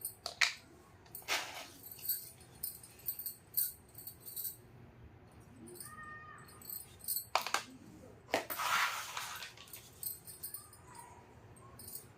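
Small plastic toy pieces clicking, tapping and rattling as they are handled, with a longer rustle about eight seconds in.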